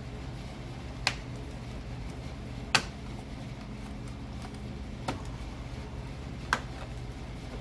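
Four sharp clicks, spaced one to two and a half seconds apart, from hand tools working on the light wiring, over a steady low hum.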